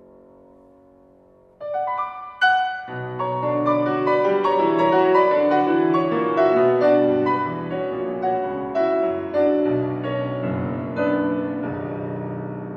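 Solo Steinway & Sons grand piano playing a classical piece. A held chord fades away, then about a second and a half in the playing starts again with a sharp accented note and a flowing run of notes, which grow softer near the end.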